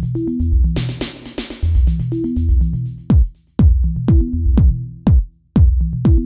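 Electronic background music with a drum-machine beat and bass line; after a couple of bright crashing hits early on, it switches about three seconds in to quick hits that fall in pitch, about two a second.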